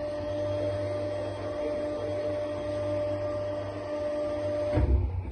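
Kolbe MW 32 mobile meat mincer running empty: a steady electric-motor hum with a clear whine as its knife turns behind the hole plate. The hum cuts off near the end, followed by a loud knock.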